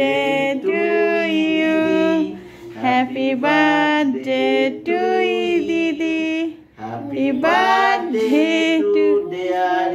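Women and children singing together in sustained phrases, with two short breaks for breath.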